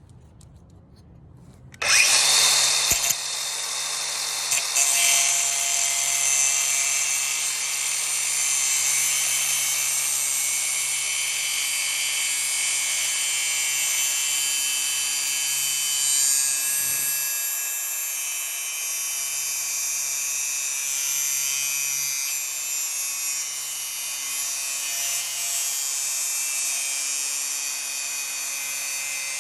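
DeWalt 60V cordless angle grinder starting about two seconds in and then cutting through a metal bolt with a thin cutoff wheel: a steady, loud, high grinding hiss with the motor's hum underneath.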